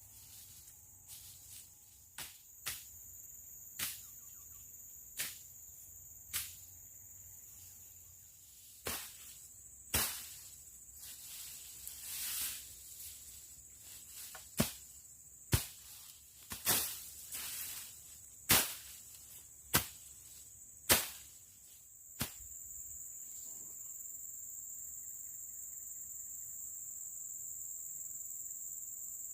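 A blade slashing through brush and undergrowth: about eighteen sharp chopping strikes with short swishes, irregular and a second or two apart, stopping around two-thirds of the way through. Under them runs a steady high-pitched chirring of crickets or cicadas, which grows louder once the chopping stops.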